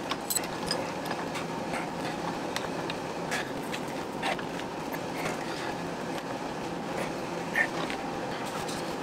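A machine vise is wound shut to press mild-steel crank webs onto the pins of a Stuart 10v model crankshaft, giving scattered small metal clicks and creaks over a steady background hum. A sharper click comes near the end.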